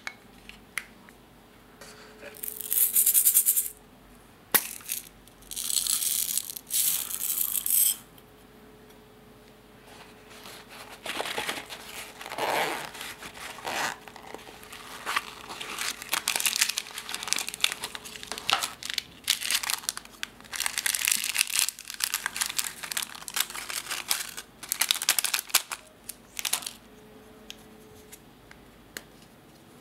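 Crinkling, rustling and rattling from makeup packaging and glitter containers being handled and shaken out by hand. Two loud crackly bursts come in the first eight seconds, then a longer stretch of irregular rustling and light rattling.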